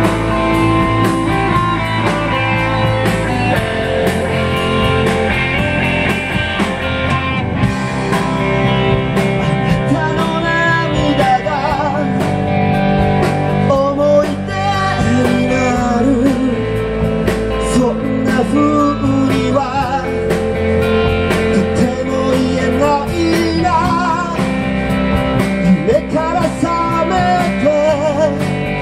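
Live rock band playing: electric guitars over bass and drums, with a wavering lead melody from about twelve seconds in.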